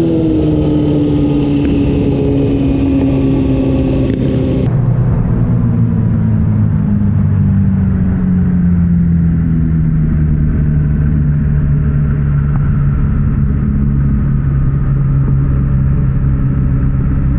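Suzuki GSX-R sportbike's inline-four engine heard from on board, its note falling steadily as the bike slows. About five seconds in the note changes, then it runs on at low, slowly sinking revs.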